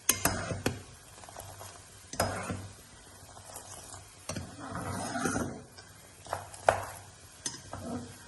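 Spoon stirring a simmering pot of spiced qahwa, knocking sharply against the pot about eight times at uneven intervals, with a softer scraping around the middle.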